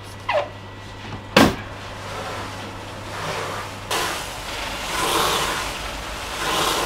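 Hand pump pressure sprayer spraying water into a hot bakery oven over bread rolls, the water turning to steam for the crust. A sharp knock comes about a second and a half in. From about four seconds the spray hisses in swells that come and go about every second and a half.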